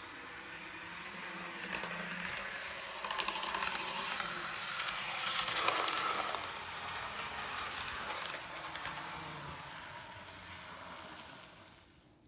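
Dapol N gauge Class 121 model railcar running along the track on its running-in, its small motor and wheels whirring with a run of clicks. It grows louder as it passes close about halfway through, then fades away near the end.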